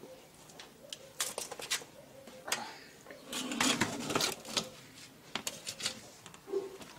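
Snail shells clicking and clattering against one another and against an enamel basin and metal tray as they are scooped and stirred by hand, in irregular bursts, with a denser, louder spell of clatter about halfway through.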